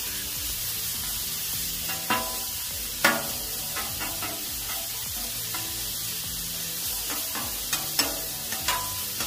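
Chorizo sizzling on a hot Char-Griller Flat Iron griddle as two metal spatulas spread it out, scraping and clinking against the griddle top. The sharpest spatula strikes stand out about two, three and eight seconds in.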